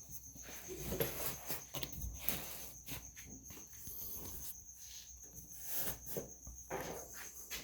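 Irregular fabric rustling and light knocks as a cover is pulled over a tool chest, with crickets chirping steadily in the background as a continuous high pulsing tone.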